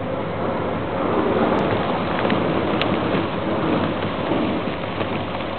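Thick sea ice breaking up and grinding along a cruise ship's hull as the ship rams through it: a continuous rumbling crunch with a few sharp cracks.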